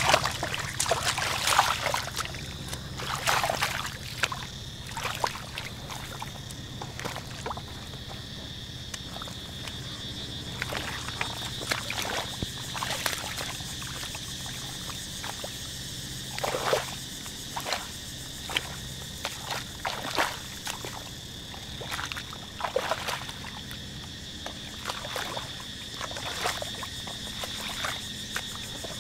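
Shallow muddy paddy water sloshing and splashing in irregular bursts as a person wades and gropes through it by hand, over a steady high whine.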